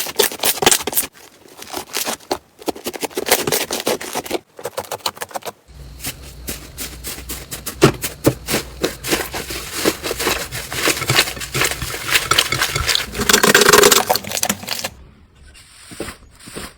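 Slime being handled, squeezed and poked, giving dense runs of crackling and popping clicks. The sound changes abruptly several times as one short clip gives way to the next.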